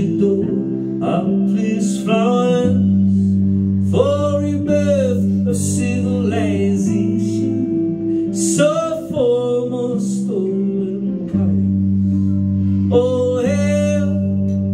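Live solo song: a man singing over a hollow-body guitar, its held chords changing every few seconds beneath the sung melody.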